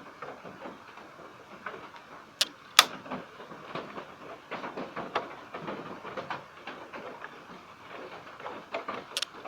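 Screwdriver working a stiff, rusty screw on an amplifier chassis: scraping and small metal clicks, with two sharp clicks about two and a half seconds in and another near the end.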